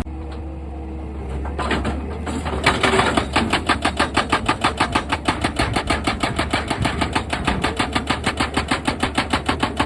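Excavator engine running, then a hydraulic rock breaker starts hammering about two and a half seconds in, a fast, steady run of about six blows a second.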